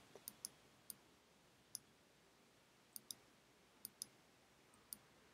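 Faint computer mouse clicks over near silence: about ten short, sharp clicks at irregular spacing, some in quick pairs like double-clicks.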